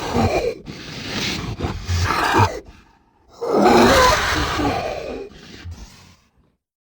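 Designed creature sound effect for Megalania, the extinct giant monitor lizard: raspy, hissing calls. A call tails off at the start, shorter growls follow, and after a brief pause about three seconds in a second loud call falls in pitch and fades out.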